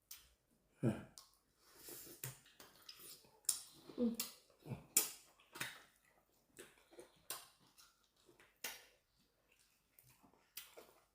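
Cutlery clinking and scraping against plates and bowls while eating, in irregular sharp clicks about once or twice a second.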